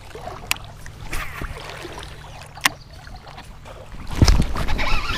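Baitcasting reel being cranked to retrieve a topwater lure, with a few sharp clicks. About four seconds in comes a loud low thump, followed by rough splashing water as a bass takes the lure.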